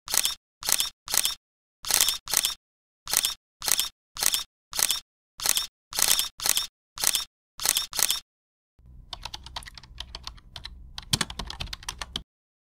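A steady run of short, sharp clicks, about two a second and some in quick pairs, with dead silence between them, like an edited-in shutter or typing sound effect. They stop after about eight seconds. A low rumble with scattered small clicks and taps follows, and it cuts off near the end.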